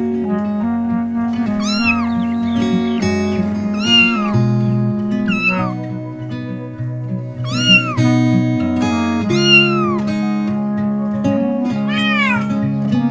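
Cat meowing over background music with a plucked acoustic guitar. There are about six meows, each rising then falling in pitch.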